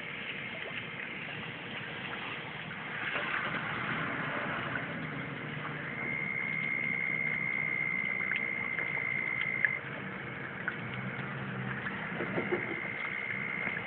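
Steady wash of rain and running floodwater, with a faint low motor hum in places. A thin, steady high whine comes in about six seconds in, stops near the ten-second mark, and returns near the end.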